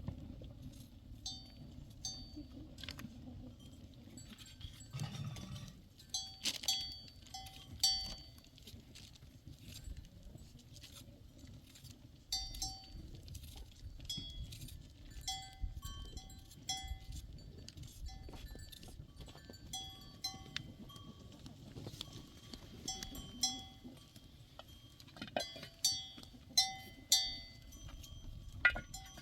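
Livestock bells clinking irregularly, several bells of different pitch ringing as the animals move, with louder clusters of clinks a few seconds in and again near the end.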